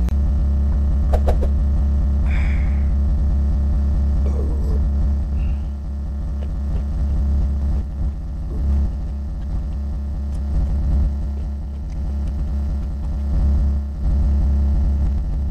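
A steady low hum runs throughout and is the loudest sound, with faint eating sounds on top: a sip of water near the start, then fingers mixing rice with pork curry and chewing.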